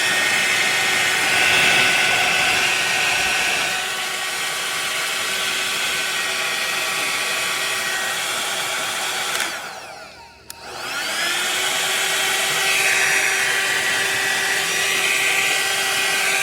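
Hot air styler (rotating blow-dryer brush) running: steady rushing fan noise with a motor whine. About ten seconds in it is switched off and winds down, then comes back on and spins up to full again.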